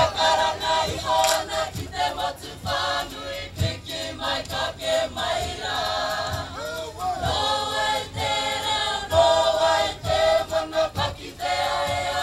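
Māori kapa haka group of men and women singing together in unison, with a low beat about once a second underneath.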